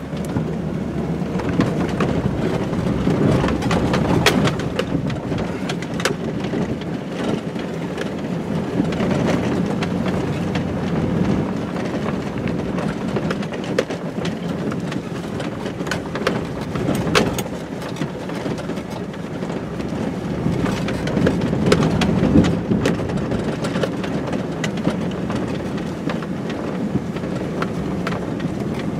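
Pickup truck driving over rough ground through tall grass, heard from inside the cab: a loud, steady rumble of engine and tyres, with many sharp knocks and rattles as the truck jolts.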